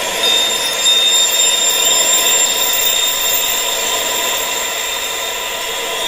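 Sound-therapy wind noise: a steady high-pitched hiss with almost no low rumble, carrying several sustained high ringing tones. A brighter, higher ringing tone comes in shortly after the start.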